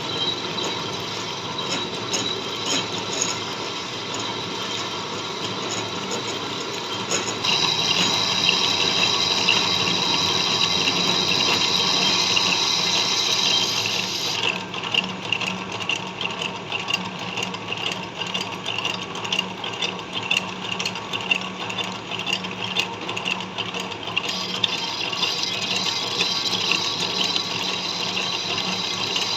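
Metal lathe running while the cutting tool turns down a welded steel part: a steady hissing cut over the machine's hum. The cut's tone shifts a few times as it goes.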